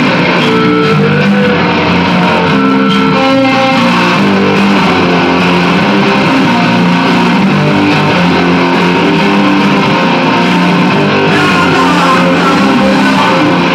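Electric guitar playing a rock song, loud and continuous, with no singing yet.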